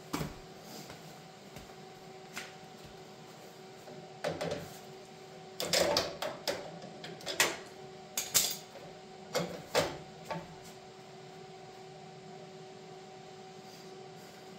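MIG welder tacking a steel cap plate onto a truck frame rail: several brief bursts between about four and ten seconds in, over a steady hum.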